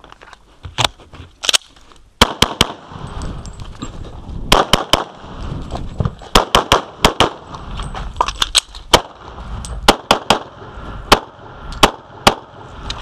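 Glock 35 .40 S&W pistol firing a long timed string of about two dozen loud shots, many in quick pairs, with short pauses between groups.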